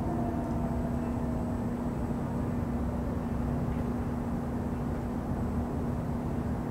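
Steady low rumble of distant city traffic with a constant machine hum, and a faint falling tone that fades out in the first few seconds.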